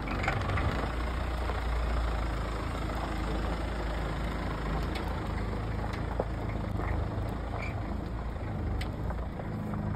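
Mahindra Thar 4x4's engine running at low revs as the vehicle crawls past over a muddy dirt track: a steady low drone, a little louder in the first two seconds, with a few faint clicks.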